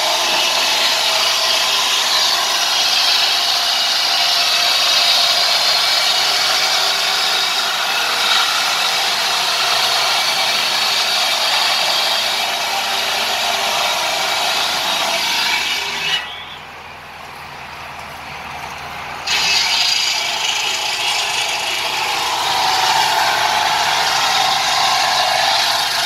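Electric sawmill saw running and cutting through timber, a loud, steady, high-pitched noise. It drops away for about three seconds a little past the middle, then comes back at full strength.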